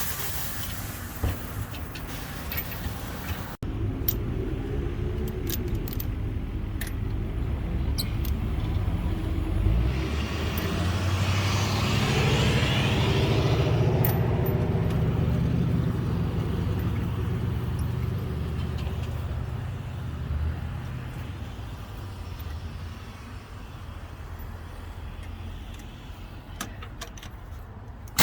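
Motor vehicle engine running steadily, growing louder about ten seconds in and then easing off again, as if a vehicle passes close or pulls away.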